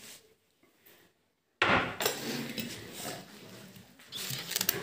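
Silence for about a second and a half, then clattering and knocking as a glass bowl of carrots in water is picked up and handled on a table, with a few sharp clinks near the end.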